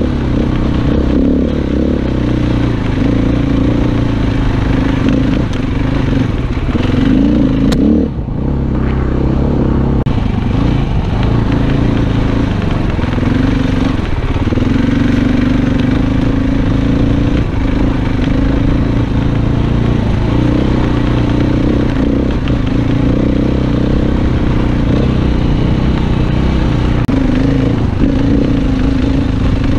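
Dirt bike engine running while riding a rocky trail, its note rising and falling with the throttle, with a brief drop about eight seconds in.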